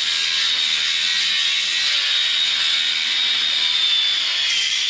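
A power tool running steadily with a thin high whine that wavers slightly and dips briefly near the end.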